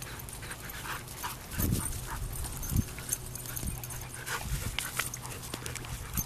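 Dog panting, with scattered light clicks and a few dull low thumps about one and a half, three and four and a half seconds in, over a steady low hum.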